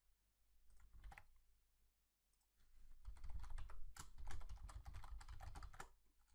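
Typing on a computer keyboard: a few scattered keystrokes, then a quick run of key clicks starting about two and a half seconds in and lasting about three seconds.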